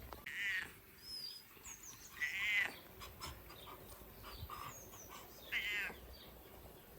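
An animal calling three times, each a short, high, wavering call, the second the loudest, with small birds chirping faintly.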